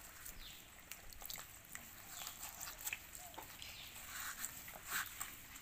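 Termite mushrooms being scrubbed with a sponge and a steel-wool scourer in a basin of water: faint, scattered small rubbing and clicking sounds. Faint animal calls sound in the background.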